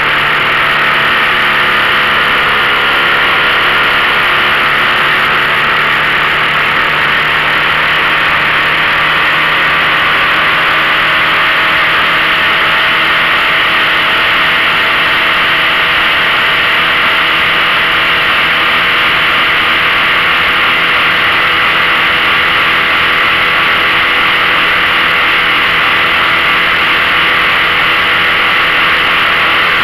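15 hp outboard motor running at a steady speed, pushing a small fishing boat, over a steady hiss.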